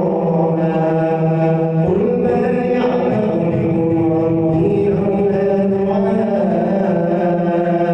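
A man chanting Quran recitation in a slow melodic style. He holds long drawn-out notes that step to a new pitch every couple of seconds.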